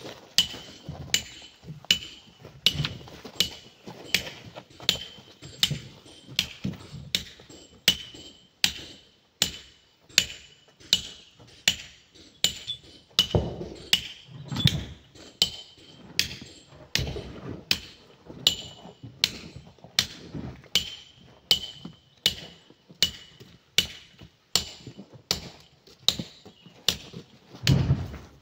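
Hand hammer striking a steel chisel into a stone boulder to split it, at a steady pace of about two blows a second, each blow with a short metallic ring. A few duller, deeper thuds come in about halfway through and near the end.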